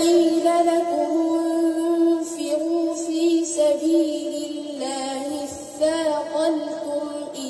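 A boy reciting the Quran in a melodic chant into a microphone, holding one long drawn-out note for the first few seconds before moving on in shorter rising and falling phrases.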